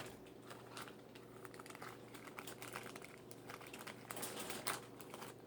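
Toy packaging being handled and opened: faint, irregular small clicks and crinkles of plastic, slightly busier near the end.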